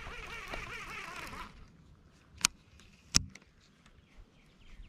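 Two sharp clicks, under a second apart, as a bass jig dangling on fishing line is caught and handled by hand.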